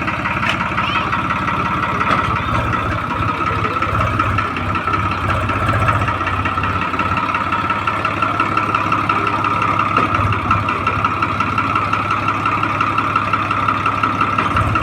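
Heavy diesel engine of earth-moving or farm machinery running steadily at constant speed, a low drone with a steady high whine over it.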